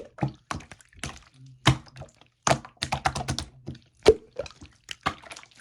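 Soft, melty slime being squished and pressed by hand, making irregular wet clicks and pops.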